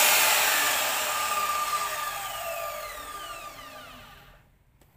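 Modern M3700B 7-inch aluminium-cutting miter saw's 900 W motor and blade running free with no cut, then winding down after switch-off: its whine falls in pitch and fades until it stops about four and a half seconds in.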